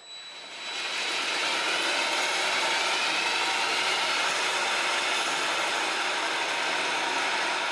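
A cordless drill spins a lawnmower blade up to speed on a balancing shaft, with a faint rising whine as it speeds up. Then comes the steady rush of the spinning blade on its shaft, run up for a vibration reading of the blade's balance.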